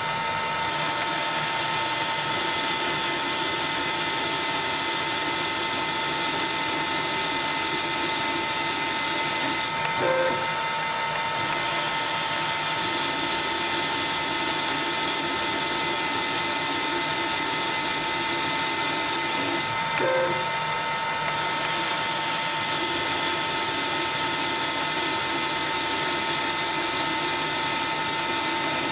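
CNC-converted Myford ML7 lathe running under program control: a steady machine whine with several held tones and a hiss. A brief click and break in the sound repeats about every ten seconds, in step with repeated cutting passes.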